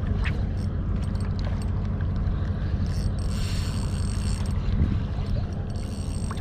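Daiwa BG2000 spinning reel being cranked on a lure retrieve, its gears whirring, over steady wind rumble on the microphone.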